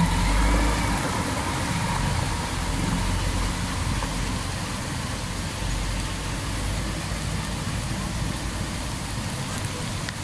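Diesel engine of a concrete mixer truck running as it drives through floodwater close by, loudest about the first second and easing off as it pulls away, over a steady hiss of water and street traffic.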